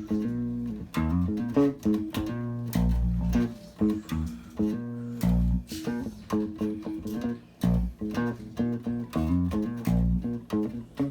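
Guitar and bass-guitar music played through a vintage tube compressor with its threshold raised, the plucked notes coming through with a thick growl from the compressor's transformers.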